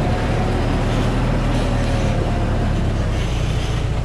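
A Thaco Forland truck laden with about 18 tonnes of acacia logs, its diesel engine running under load as it crawls past over a rocky forest track: a loud, steady low rumble.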